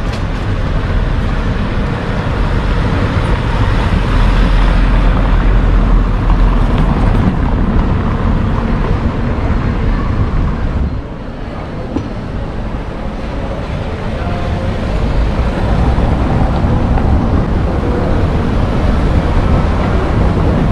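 Town street ambience picked up by a walking camera: a loud, steady rush with a heavy low rumble, easing for a moment about eleven seconds in, then rising again.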